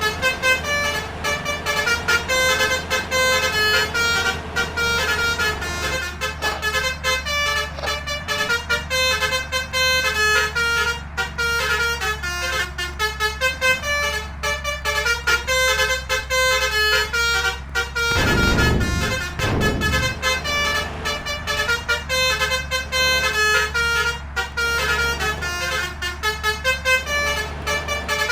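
A bus's multi-tone 'telolet' basuri horn playing a quick, continuous melody of changing notes over the steady low drone of the vehicle. A brief low rumble cuts in about eighteen seconds in.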